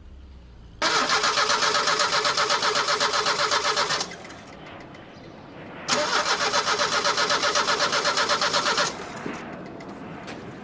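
A car's starter motor cranking the engine in two attempts of about three seconds each, with rapid even pulsing; both stop abruptly. The engine does not catch: the car won't start.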